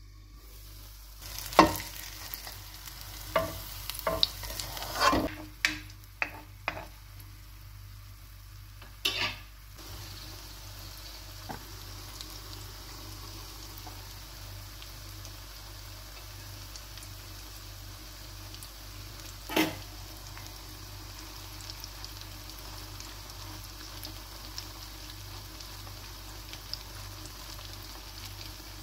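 Zucchini pancake batter frying in olive oil in a nonstick pan, a steady sizzle that gets louder about a second and a half in with a sharp clink. Knocks and clinks of the lid and utensils against the pan come through the first ten seconds, and one more knock comes about twenty seconds in.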